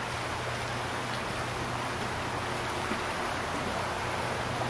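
Steady rain, an even hiss with a low hum underneath.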